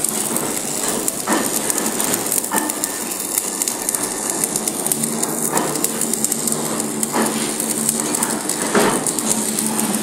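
Stick (arc) welding on a steel seam: the arc crackles and sizzles continuously, with a few sharper pops every second or two.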